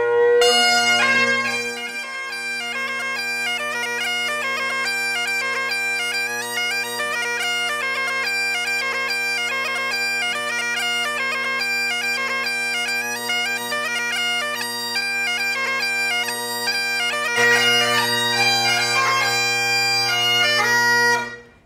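Great Highland bagpipe being played: a chanter melody over the steady, unbroken hum of the drones. The pipes stop abruptly near the end.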